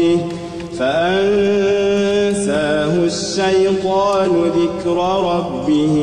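Melodic Quran recitation: one voice chanting verses in long held notes that waver and glide between pitches.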